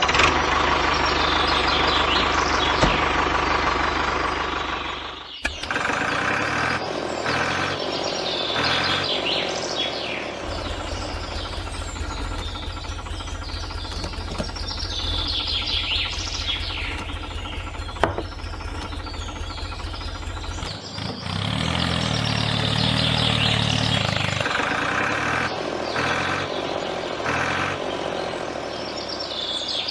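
A small engine running steadily with an even low pulse, stopping and changing character abruptly a few times, while birds chirp outdoors.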